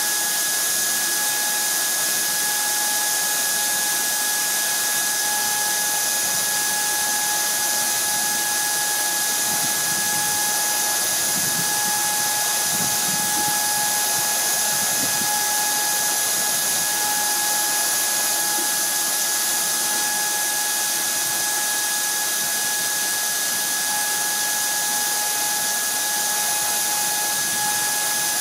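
NeoP4 desktop CNC mill's spindle running steadily while its fine pointed cutter mills an aluminium part: a steady high whine over a constant hiss.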